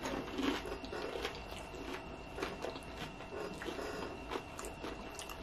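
Close-up chewing of a mouthful of nachos loaded with cheese dip and sour cream: irregular small clicks and smacks of the mouth working the softened tortilla chips.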